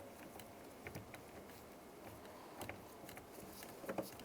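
Faint, scattered ratchet clicks as a ratchet on a long extension with a 10mm socket works a bolt out from inside the door.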